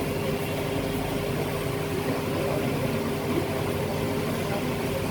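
Steady engine hum with a constant droning tone, unchanging throughout.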